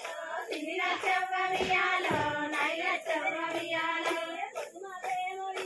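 A Bathukamma folk song sung by women's voices over a steady clapping beat.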